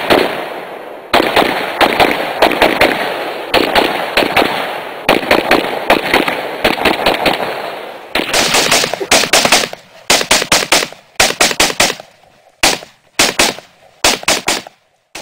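Rifle gunfire, including an AK-47, in rapid strings of shots close together for about eight seconds. Then the sound changes abruptly to short bursts of several quick shots each, with gaps between the bursts.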